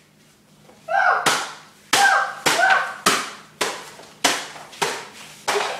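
A quick run of about eight sharp slaps, roughly two every second, from magazines being swatted in a play fight.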